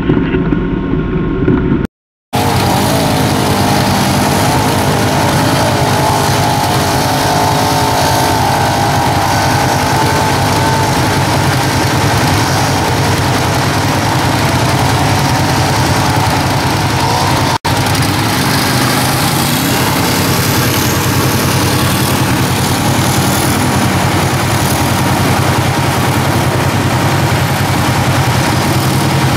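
ATV engine idling over the steady rush of a swollen, muddy river, with a quad running through the water. A short cut to silence about two seconds in, and a brief dropout a little past halfway.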